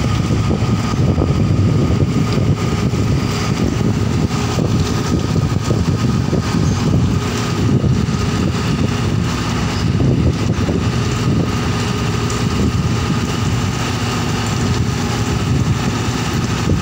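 Diesel engine of a small crawler bulldozer running steadily as it trims coal cargo in a ship's hold.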